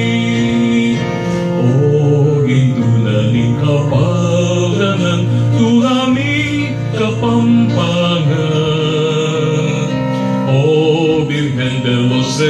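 A Kapampangan Marian hymn to the Virgen de los Remedios: a voice singing with vibrato on held notes over steady instrumental accompaniment.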